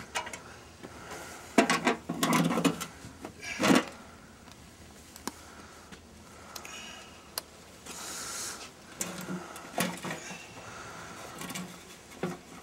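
Knocks, clicks and scrapes of a furnace blower's metal wheel and motor being handled and worked apart by hand, with a cluster of the loudest knocks about two to four seconds in.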